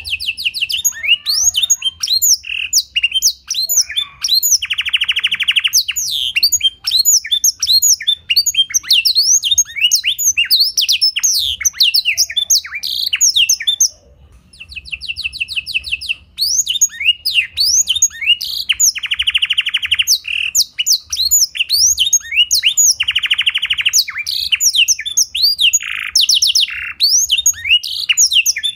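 Domestic canary singing a long, fast song filled with black-throated canary phrases: rapid chirps and sweeping whistles with several buzzy rolls, broken by a short pause about halfway through.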